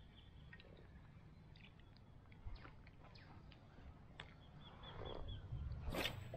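Birds calling with scattered short chirps and, a little after four seconds in, a quick run of about six repeated notes. Near the end comes a short swish as a spinning rod is cast.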